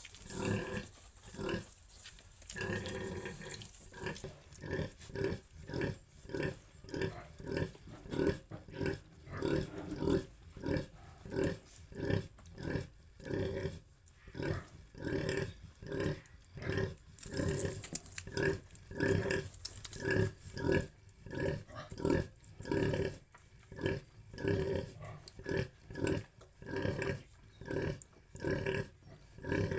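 A sow grunting in a steady rhythm, about one and a half short low grunts a second: the rhythmic grunting a sow makes while nursing her piglets.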